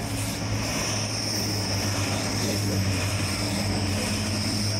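Diesel train engine running with a steady low drone, and a steady high-pitched whine above it.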